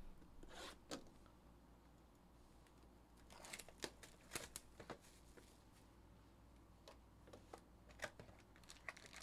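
Faint, scattered taps and rustles of a cardboard trading card hobby box being handled and opened by hand.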